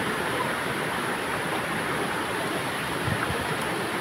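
Steady rush of flowing stream water, with a soft low thump about three seconds in.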